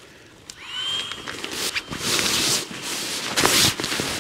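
Nylon tent fabric and sleeping gear rustling and crinkling as they are handled and spread out, in several bursts with the loudest near the middle and about three quarters of the way through. A faint thin high whistle rises in about half a second in and then holds steady.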